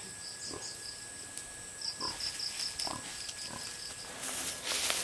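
A few short animal calls, each sliding down in pitch, over an insect chirping in quick runs of high pulses; a loud rustle starts near the end.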